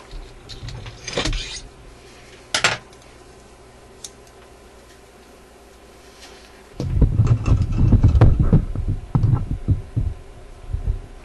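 A few sharp clicks of small parts being handled, then, from about seven seconds in, a loud, dense run of crinkling and clicking handling noise as a thin shim is worked by hand close to the microphone.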